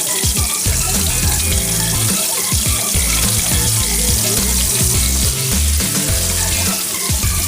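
Background music over a steady hiss.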